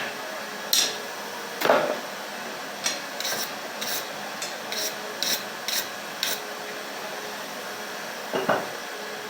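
Scattered metal-on-metal taps and clinks of steel being worked at the anvil: two heavier knocks in the first two seconds, then a string of lighter, higher clicks at irregular spacing, and one more knock near the end. The rod has already cooled, so these are light taps rather than full forging blows.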